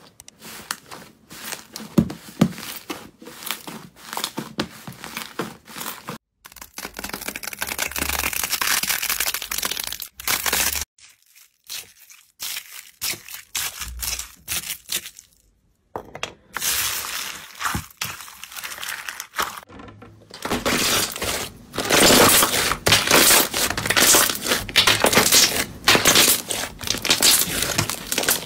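Hands pressing, poking and squeezing different slimes in a run of short clips, making crackling, popping and tearing sounds: green cloud slime under a bead net, a bowl of pink beads stirred with a honey dipper, and soft green slime squeezed in the fist. The sound breaks off and changes at each cut, and the densest, loudest crackling comes in the last stretch.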